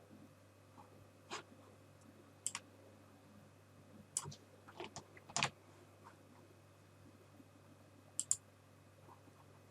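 Scattered clicks of a computer mouse and keyboard, irregularly spaced, some in quick pairs like double-clicks, over a faint steady hum.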